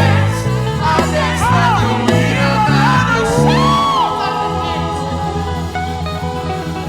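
Gospel praise band playing, with a bass line and sustained chords under a singer's sliding vocal runs that fade out about four seconds in, leaving the band playing on.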